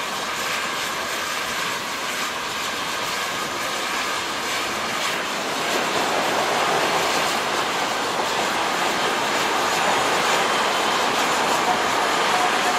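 Narrow-gauge steam train hauled by three small 0-4-0 tank engines running past, steam and the clatter of the coaches on the rails, getting louder about halfway through as it comes nearer.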